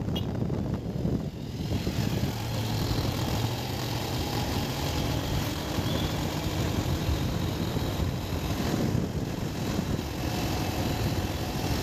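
Steady engine and road noise of a moving vehicle, heard from on board, with a low rumble that holds an even level throughout.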